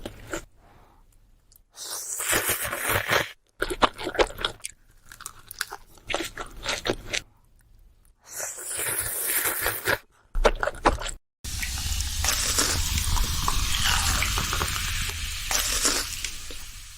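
Close-miked eating sounds: crunching bites and chewing in short bursts separated by brief pauses. In the last five seconds there is one continuous stretch of noisy eating sound.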